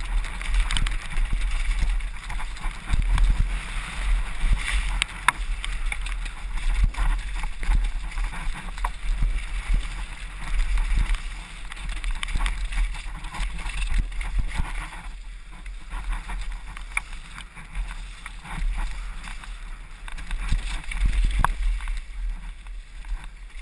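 Mountain bike ridden fast down a wet, rocky trail, heard from a helmet-mounted camera: steady low wind rumble on the microphone, tyres rolling over mud and gravel, and frequent clicks and rattles from the bike over bumps.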